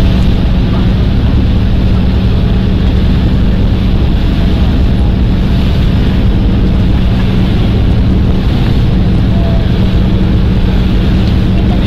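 Motorboat engine running steadily at speed, a constant loud drone with one steady low hum, mixed with rushing water from the wake and wind buffeting the microphone.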